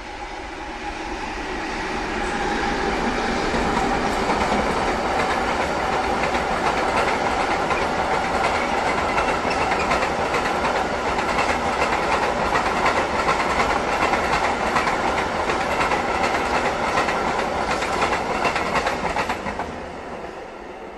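Freight train of hooded steel-coil wagons, hauled by a BR232 diesel locomotive, passing close by. The rumble builds over the first few seconds into a steady clickety-clack of wagon wheels over the rail joints, then fades away about a second before the end.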